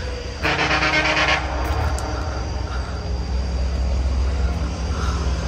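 Road traffic: a vehicle horn sounds for about a second near the start, over a steady low rumble of passing vehicles.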